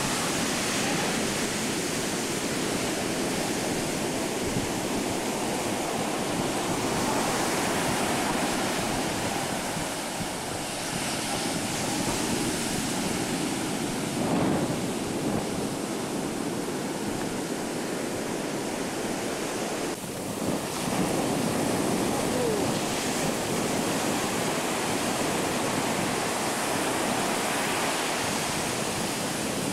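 Ocean surf washing onto a beach, a steady rush that swells and eases, with wind buffeting the microphone.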